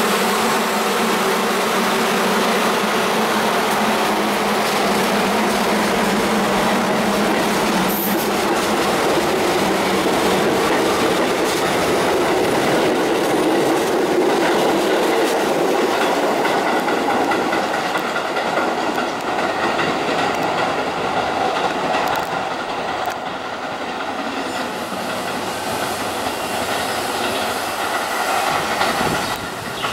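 Staten Island Railway R44-SI subway train pulling out and running past close by, with wheel noise on the rails. It grows quieter over the second half as the train draws away.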